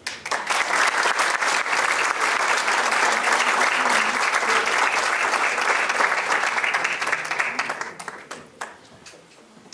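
Audience applauding, starting suddenly and fading out about eight seconds in, ending with a few scattered claps.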